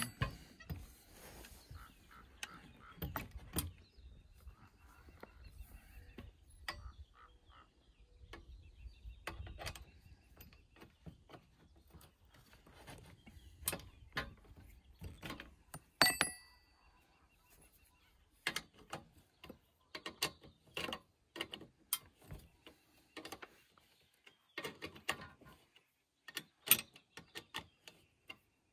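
Irregular metal clicks, taps and clanks of a T-handle wrench working the clamp bolts of a chainsaw mill bracket fitted to a chainsaw bar, with one louder clack about halfway through.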